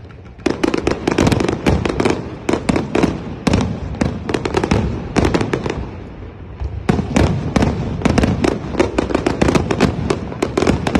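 Aerial fireworks going off in rapid succession: a dense run of sharp crackling pops starting about half a second in, easing briefly past the middle and then picking up again.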